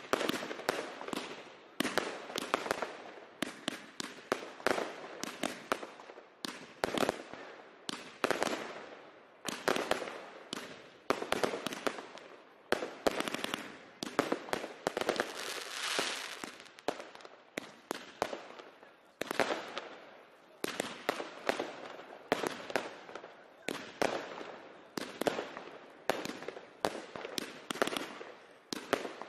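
Fireworks battery (cake) firing aerial shots in quick succession, about one to two sharp bangs a second with crackle between them. There is a denser, hissing stretch about halfway through.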